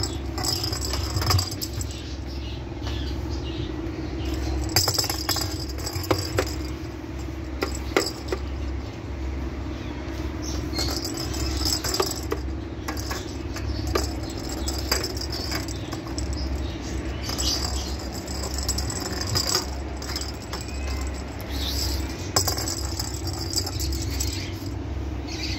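Kittens moving about on a hard stone floor: scattered light clicks and knocks, with short bursts of high rattling every few seconds, over a steady low hum.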